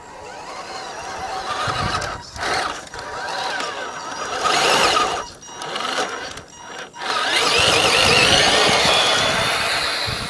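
Tamiya High Lift Hilux RC truck's electric motor and gearbox whining as it drives, cutting out briefly three times when the throttle is let off. The whine is loudest about eight seconds in, as the truck passes close, and then fades.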